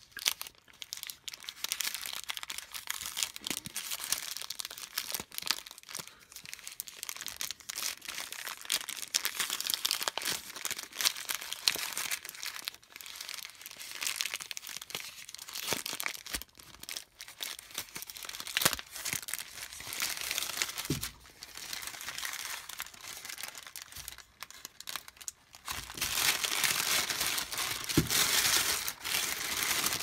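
Cheese wrapping paper crinkling and crackling as hands unfold and peel it open from a wedge of cheese, louder near the end.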